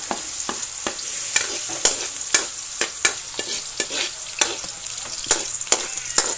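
Chopped garlic sizzling in hot oil in a wok, with frequent sharp clicks as it is stirred in the pan.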